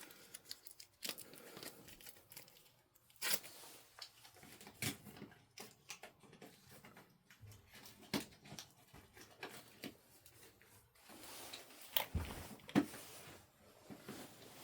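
Intermittent light clicks, taps and rustling from hands handling things, with a few sharper clicks about 3, 5, 12 and 13 seconds in.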